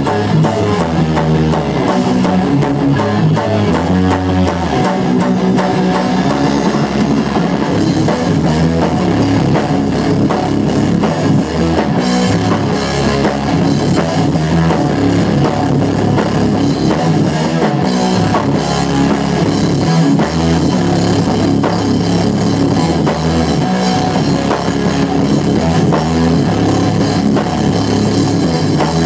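Live rock band playing loudly: guitar over a driving drum kit and bass line, steady throughout.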